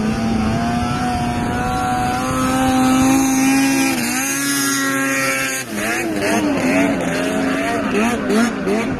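Snowmobile engine running hard as the sled skims across open water, its pitch rising slowly and then falling as it passes close by about four seconds in. After a cut, a sled's engine warbles rapidly up and down as it skips over the water.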